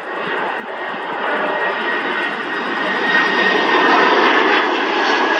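Boeing 767 freighter's twin jet engines at approach power as it comes in to land, growing louder as it nears. A steady high whine sits over the broad rush of the engines.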